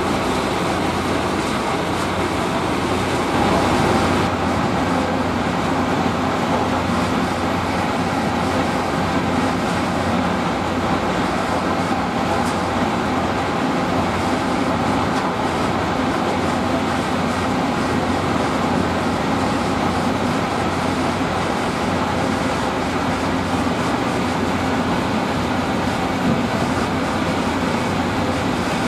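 A steady mechanical rumble with a low hum, unbroken and even in level.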